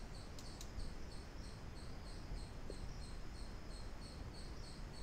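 Faint high-pitched chirping that repeats evenly about three times a second, over a low steady hum. Two light clicks come about half a second in.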